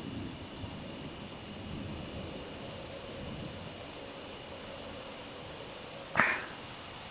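Steady, slightly wavering high chorus of night insects, with no thunder heard. About six seconds in there is a single sharp knock.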